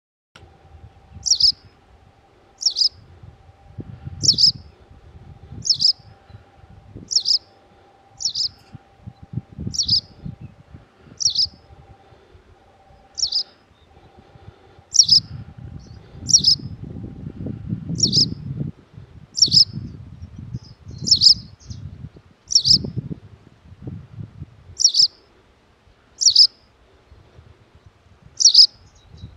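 White wagtail giving a short, sharp call over and over, about once every second or so, with a low rumble underneath.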